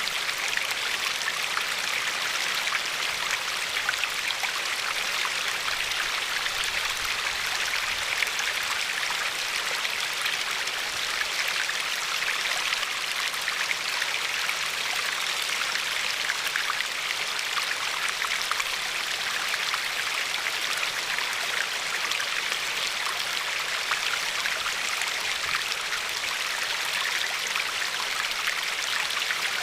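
A river's water flowing and lapping over a pebbly shore: a steady rush with fine splashing and dripping detail.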